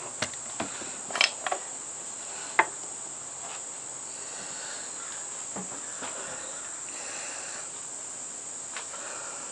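Steady high-pitched chorus of insects, with a few light knocks and taps in the first three seconds, the loudest at about two and a half seconds.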